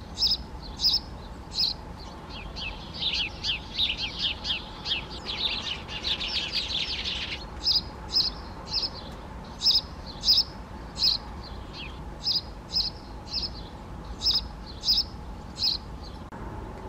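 Great spotted woodpecker giving short, sharp 'kik' calls, about two a second, with a run of faster, denser chattering calls from about three to seven seconds in.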